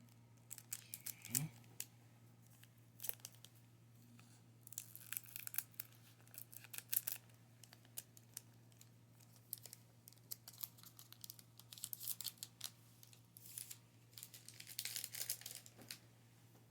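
Foil wrapper of a trading-card booster pack being torn open and crinkled by hand: bursts of sharp crackling and small ticks, in several clusters with short pauses between.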